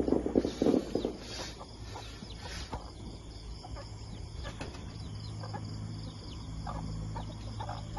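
Domestic chickens clucking in alarm inside their cage, a rapid run of loud clucks in the first second, then quieter scattered calls. The flock is alarmed by a python lying on the cage door frame.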